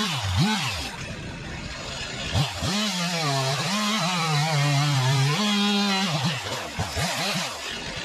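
Two-stroke chainsaw revving in quick bursts, then held at high revs for about three seconds, its pitch wavering, before dropping back to more short revs near the end.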